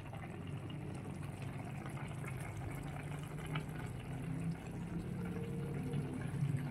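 A pan of fish broth simmering on the stove: a steady bubbling with faint small pops.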